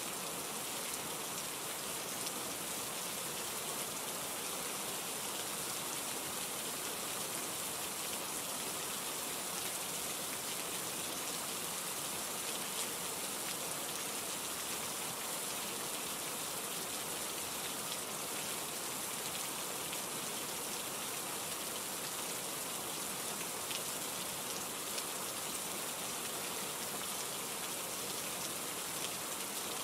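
Steady rain falling, a constant hiss with fine scattered drop patter.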